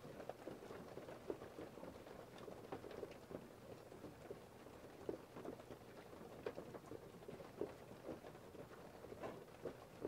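Sparse falling drops of precipitation pattering: faint, irregular taps, a few a second, over a light steady hiss.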